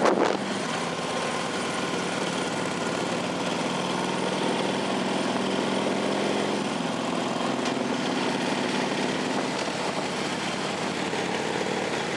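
Steady driving noise of engines and tyres on the road, heard from inside a car following a group of motorcycles, with a low steady hum throughout. A short knock sounds at the very start.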